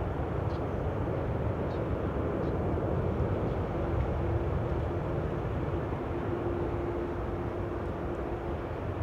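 Boeing 747-8's four GEnx-2B jet engines running with a steady roar and a faint held hum as the airliner rolls out after landing.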